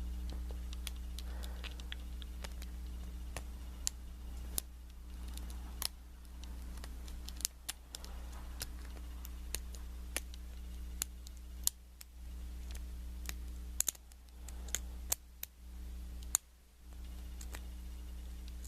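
Lock pick and tension wrench working the pin tumblers of a small brass Wilson Bohannon padlock: irregular light clicks and scrapes as pins are set, over a steady low hum.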